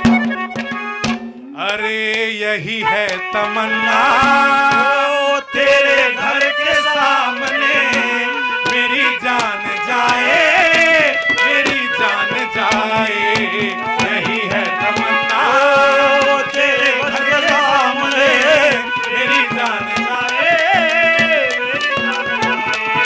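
Haryanvi ragni performance: a man sings a wavering, ornamented melody over a steady harmonium drone, with fast hand-drum and clay-pot (ghara) percussion running throughout.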